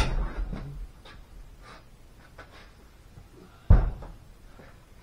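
A sharp knock at the start, then, nearly four seconds in, one loud heavy thud as the steel barrel of a hydraulic cylinder is set down on a concrete floor. Faint handling knocks come in between.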